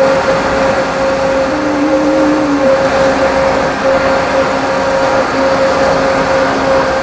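Steady machine hum with a constant drone, plus a short higher tone about two seconds in.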